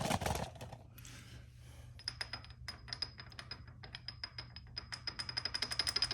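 A short knock, then a ratchet wrench clicking in a quick, even run of metallic ticks that speeds up toward the end.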